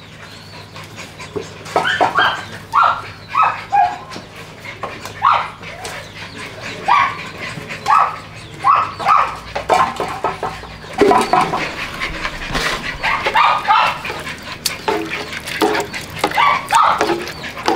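Several puppies yipping and whining in short high calls over and over, begging at feeding time, with a few clinks of a scoop against a metal pot.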